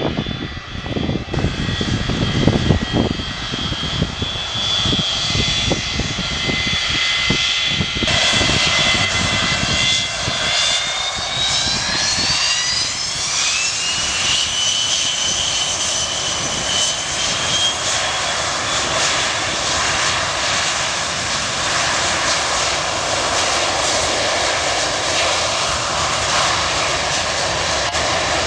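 Boeing 727-200 freighter's three JT8D turbofans spooling up to takeoff power: a high whine rises in pitch from about ten to fourteen seconds in, then holds over a steady jet roar. Gusty low rumble fills the first several seconds.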